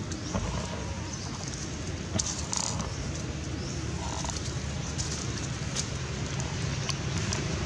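Outdoor ambience: a steady low wind rumble on the microphone, with scattered light crackles of dry leaf litter and two brief faint squeaks about two and a half and four seconds in.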